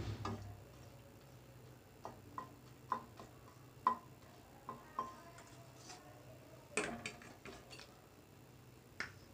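A spatula clinking against a kadai while two dried red chillies fry in hot mustard oil: scattered light metallic ticks, some with a brief ring, and a small cluster of them about seven seconds in.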